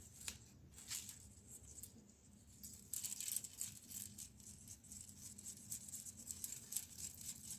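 Thin plastic mika sheet crinkling and crackling as it is handled: a couple of separate crackles at first, then dense, quick crackling from about three seconds in.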